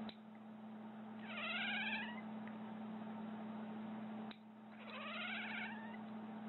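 Tabby cat giving two rising, squeaky meows, each about a second long and some three seconds apart, over a steady low hum.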